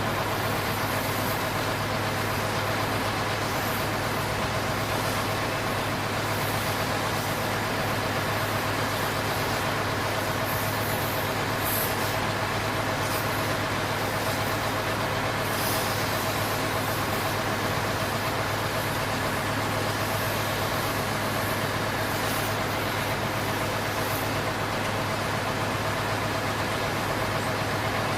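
A steady vehicle-engine running sound with a constant low hum, unchanging throughout, with faint high squeaks now and then.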